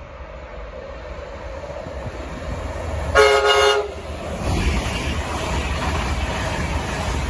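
Train approaching with its noise growing, sounding one short horn blast about three seconds in, then running past with a steady rushing noise on the rails.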